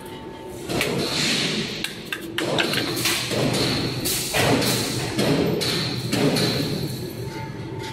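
Egg tray production line running: irregular heavy knocks and thumps, about one a second, over a steady high machine whine.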